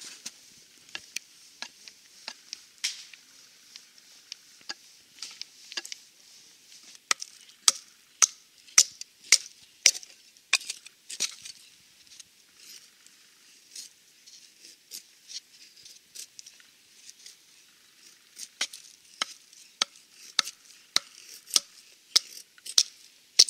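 Repeated sharp strokes of a blade chopping dry dead wood, in quick runs of about two strikes a second about seven seconds in and again near the end, with scattered single strikes between.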